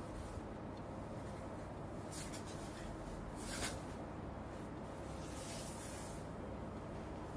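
Silk saree rustling faintly as the cloth is handled and draped, with a few brief swishes, the sharpest about three and a half seconds in, over a steady low hum.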